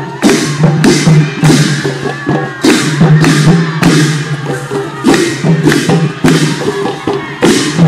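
Rhythmic percussion music: sharp struck strokes about twice a second over a steady low tone.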